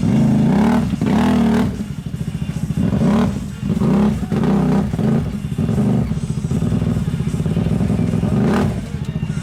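Side-by-side UTV engine revved hard in repeated surges, the pitch rising and falling every second or so, as it is worked through a deep mud hole.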